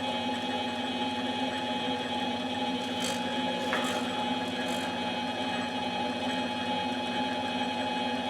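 A small electric machine running steadily, a constant hum with a higher whine, with a couple of faint ticks about three and five seconds in.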